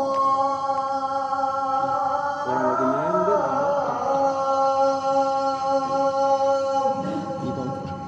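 A man's voice chanting an Islamic recitation, holding one long, steady note with an ornamented, wavering run partway through, then trailing off near the end.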